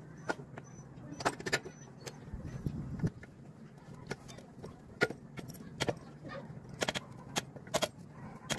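Irregular metallic clicks and clinks of hand tools and parts at a motorcycle's rear axle and chain adjuster as the rear wheel is being refitted, over a low steady hum.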